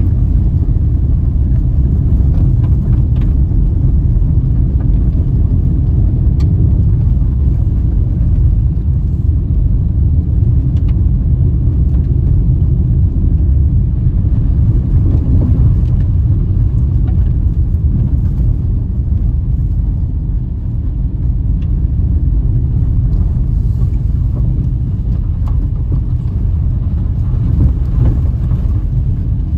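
Steady low rumble of a car driving on a wet gravel road, heard from inside the cabin: tyre and road noise with the engine underneath, and a few faint ticks scattered through.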